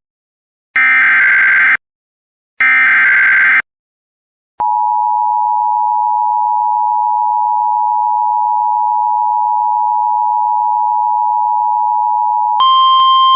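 Emergency Alert System signals: two short, harsh digital bursts of the SAME header data, then the steady two-tone EAS attention signal held for about eight seconds. Near the end a different, buzzier alert tone cuts in.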